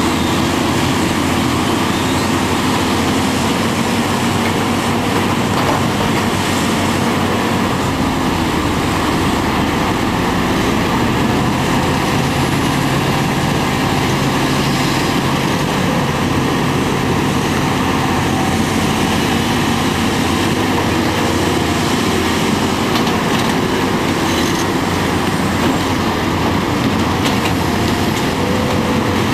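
Diesel engines of hydraulic excavators and a dump truck running steadily under working load, with no breaks.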